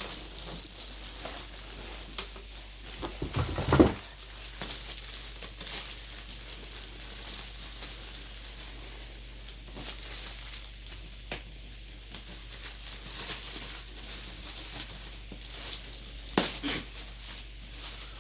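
Chair packaging being handled: crinkling and rustling with small clicks, a loud thud about four seconds in and a couple of sharp knocks near the end.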